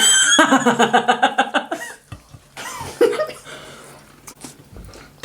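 A woman laughing for a couple of seconds, then a short vocal burst about three seconds in, followed by quieter clicks.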